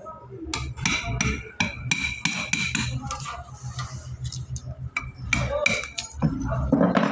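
Metal being struck with a hand tool: a series of sharp, ringing metal-on-metal knocks, about three a second for the first few seconds, then a pause and a few more later on. A steady low hum runs underneath.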